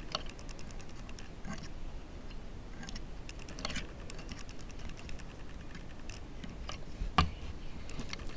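Loom knitting on a fine gauge knitting loom: a metal loom tool lifting loops over the pegs, making light, irregular clicks and ticks, with one louder click near the end.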